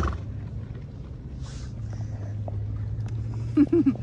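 Horses eating loose hay close by: chewing and rustling in the hay, with a short noisy blow at the start, over a steady low hum. A brief, loud pitched sound comes near the end.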